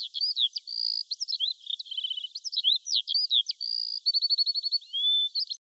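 A songbird singing a rapid, varied song of high whistled slurs and chirps, with a quick run of evenly spaced trill notes about four seconds in.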